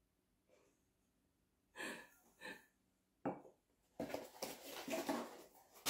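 Small white cardboard box being handled: a sharp click a little after three seconds in, then about two seconds of dense cardboard and paper rustling. Two short murmured vocal sounds come just before two seconds in.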